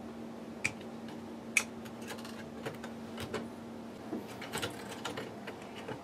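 Hard plastic clicks and taps of an HP Photosmart printhead being handled and lifted out of its carriage. Two sharp clicks come in the first two seconds, the second the loudest, followed by a run of smaller irregular taps.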